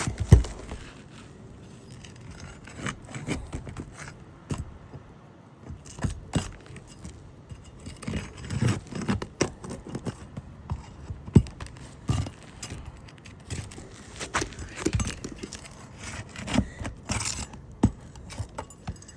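Steel roof snake working under 3-tab asphalt shingles: irregular metallic clicks and scrapes as it is slid and pried beneath the shingle to free it, with a sharp knock at the start.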